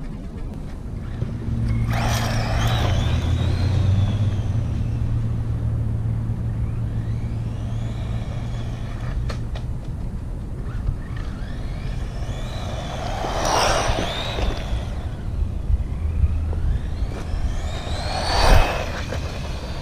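Wltoys 20409 1/20-scale RC car driving past on asphalt three times, its electric motor whining in a pitch that climbs as it approaches and falls away as it passes, with tyre noise. The last pass, near the end, is the loudest. A steady low hum runs under the first half.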